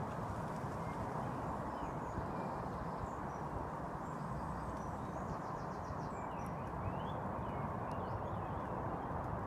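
Steady outdoor background noise with faint birdsong: scattered short chirps and a brief rapid trill about halfway through.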